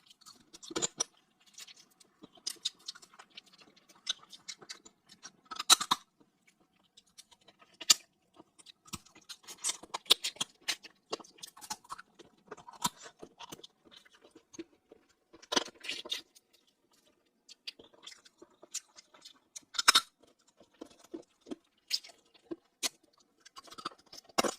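Close-miked eating of shellfish: irregular chewing, crunching and sharp clicks and cracks of shell, with a few louder snaps scattered through.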